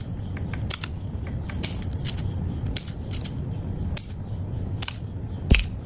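Small scissors snipping repeatedly through a flexible SMD2216 LED strip: a run of crisp clicks, about two or three a second and irregularly spaced, the loudest one near the end.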